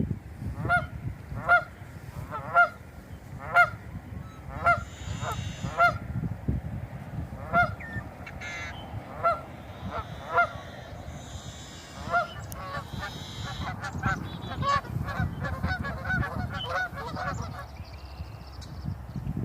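Geese honking, a series of short calls about once a second that grows into quicker, overlapping honking in the second half, over a low rumble.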